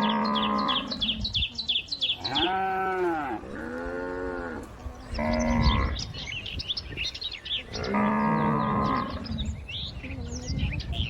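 Cattle mooing, about five separate calls, some held level and some rising and falling in pitch. Birds chirp rapidly in the background between the calls.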